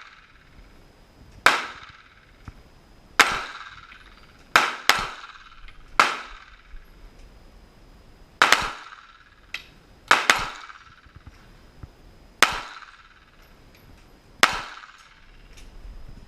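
Glock 19X 9mm pistol firing about ten single shots at an uneven pace, mostly a second or two apart, with two quick double shots, one about a third of the way in and one just past the middle. Each shot is followed by a short echo.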